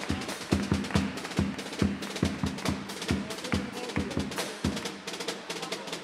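Carnival chirigota band music: bass drum and snare drum beating a quick steady rhythm, about four strokes a second, under a held note.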